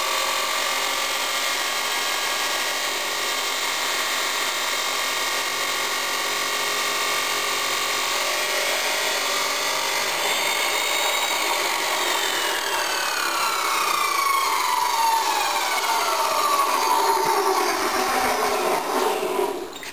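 Abrasive chop saw cutting through steel with a steady, loud grinding whine. From about halfway its pitch falls steadily while it grows louder, and it cuts off just before the end.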